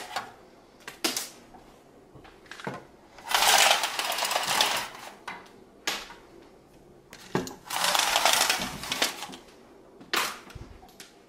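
Venetian blinds being pulled up by their cords: two rattling runs of slats clattering together, each about a second and a half long, about three seconds in and again near eight seconds, with sharp single clicks from the cord lock and slats between them.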